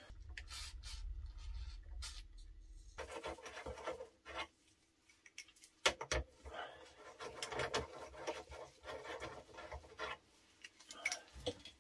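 A 14 mm spanner being worked on the brake caliper bolts of a motorcycle's front fork: light metal clicks, scrapes and rubbing, with one sharp knock about six seconds in.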